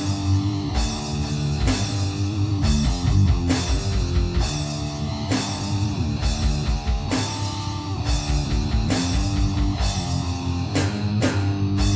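Rock music with electric guitar and drums keeping a steady beat.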